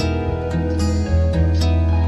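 Background music of plucked strings, harp-like, over a steady bass.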